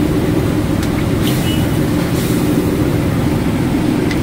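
Commercial gas wok burner running with a steady, loud low roar, with a few faint clinks in the wok.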